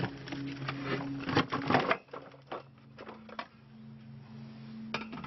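A cardboard box lid being handled and lifted off: rustling and clicks, loudest about a second and a half in, then a few scattered clicks. A steady low hum runs underneath.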